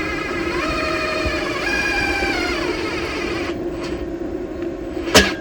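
Cordless drill driving in the gate latch's screws: the motor whine steps up in pitch about halfway through its run, then winds down after about three and a half seconds. A sharp knock comes near the end.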